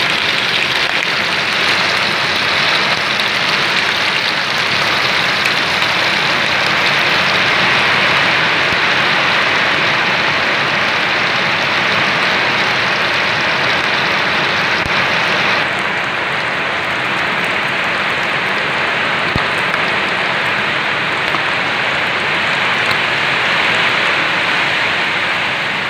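Whole moonfish frying in hot oil, a steady loud sizzle. A little past halfway the hiss turns slightly duller and quieter.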